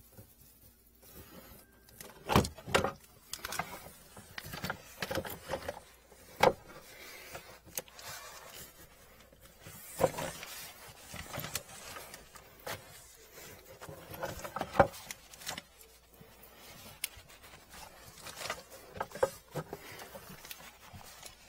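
Irregular clunks, scrapes and rustling of hoses and plastic drain pipes being handled under a kitchen sink, with a few sharper knocks.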